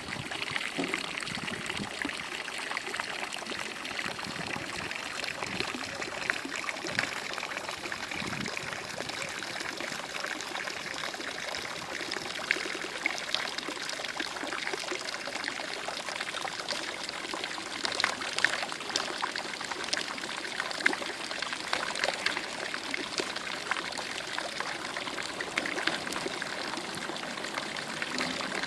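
Running water, trickling and splashing steadily, with many small drip-like splashes.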